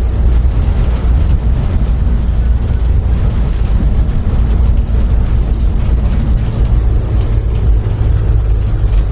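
Steady, loud low rumble of a moving vehicle, with no clear break or change.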